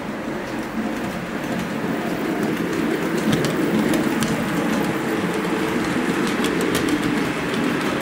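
H0-scale model train, two electric locomotives pulling a string of passenger coaches, rolling along the track: a steady rumble of wheels and motors that grows louder about three seconds in as the locomotives pass closest, with scattered light clicks.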